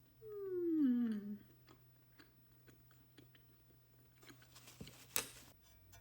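Close-up mouth sounds of someone eating ggultteok ice cream: soft chewing with small wet clicks. About a second in comes a short voiced 'mmm' of enjoyment that slides down in pitch. Near the end there is a brief noisy scrape ending in a sharp click.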